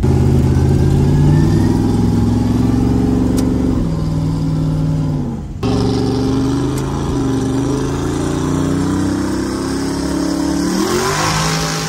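A heavily modified Chevrolet Camaro race car's engine running loud under acceleration. Its pitch climbs, drops about four seconds in, breaks off briefly a little past halfway, then climbs again and dips and rises sharply near the end.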